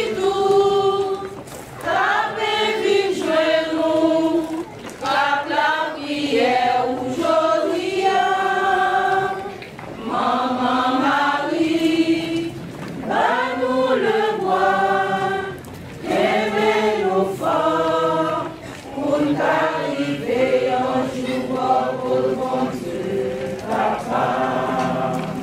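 Church choir of mixed voices singing a hymn in procession, in sung phrases of a few seconds with held notes and short breaks between them.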